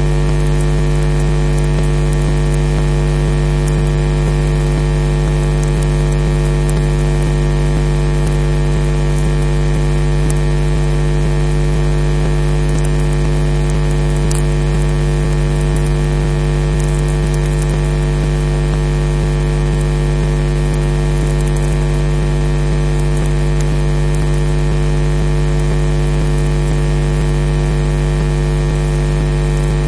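Steady electrical mains hum and buzz with many even overtones, over a hiss. It is interference in the audio line, and it masks any sound from the nest.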